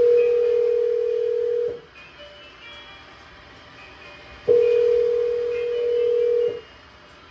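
Telephone ringback tone heard by the caller: a steady tone that sounds twice, about two seconds each, with a pause of under three seconds between rings. It is an unanswered call about to go to voicemail.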